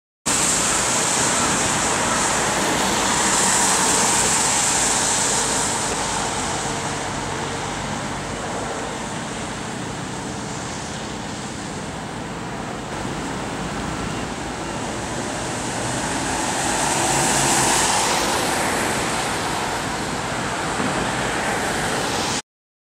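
Street traffic on a wet road: a steady hiss of tyres on wet asphalt, swelling twice as cars pass.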